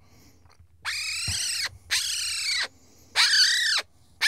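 Fledgling Eurasian magpie giving three harsh screeches about a second apart, starting about a second in, with a fourth starting at the end. It is a defensive warning call at a hand being moved towards it, louder the closer the hand comes.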